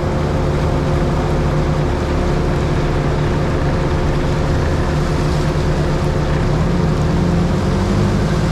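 Car driving steadily on a road in the rain: a constant engine hum under a broad, even hiss of tyres and rain.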